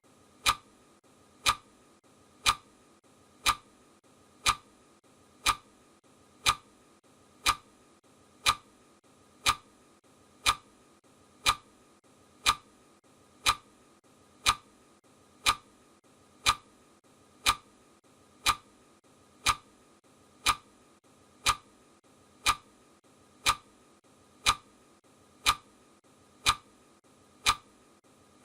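Clock ticking sound effect marking the seconds of a countdown timer: a sharp, even tick once a second.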